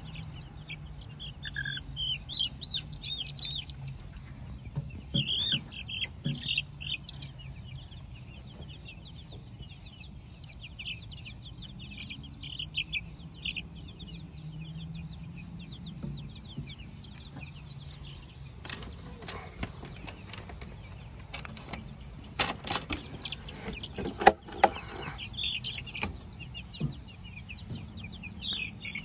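Young chicks peeping in rapid, high, short chirps, thickest in the first few seconds and again near the end, over a steady chirring of crickets. A few sharp knocks come in the second half.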